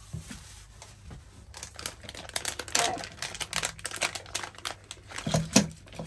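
Clear plastic packet of stickers crinkling and rustling as it is opened and its contents are pulled out, in a run of short crackles. A sharp knock near the end.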